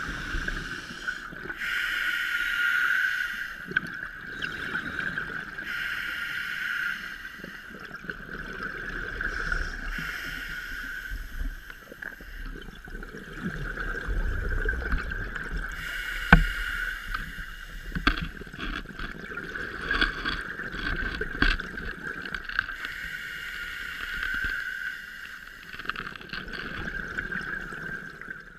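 Underwater scuba breathing through a regulator: exhaled bubbles hiss and gurgle in a regular cycle every few seconds, over a steady high hum. A sharp knock a little past halfway.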